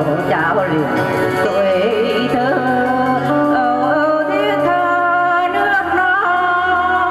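A voice singing a melody over instrumental backing music.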